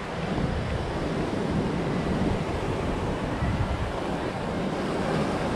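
Ocean surf washing onto a sandy beach, a steady rushing noise, with wind buffeting the microphone.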